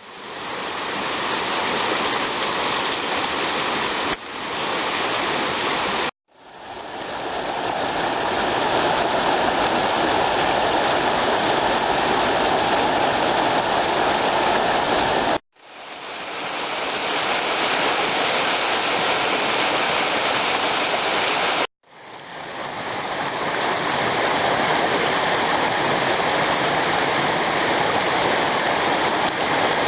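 Creek water rushing steadily. The sound drops out briefly four times and fades back in after each gap.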